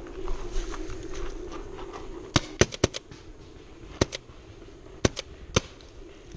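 Paintball markers firing: sharp pops in short groups, a quick run of four about two and a half seconds in, then a pair near four seconds, another pair near five, and one more shortly after.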